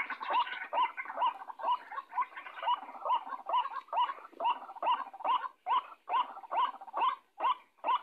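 White-breasted waterhen (ruak-ruak) calling: a steady run of short, rising notes, a little over two a second, with slightly longer gaps between them in the second half.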